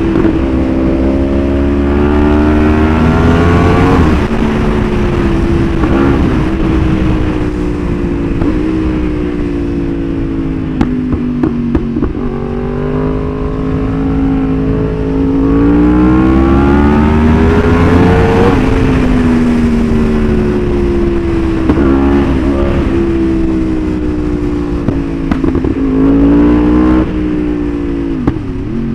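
Yamaha R1 inline-four sportbike engine accelerating hard and backing off again and again, its pitch climbing and dropping. A few sharp pops come from the exhaust as it slows, from its pop-and-bang ECU tune.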